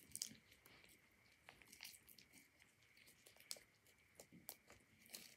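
Near silence, with faint, scattered small clicks and crackles.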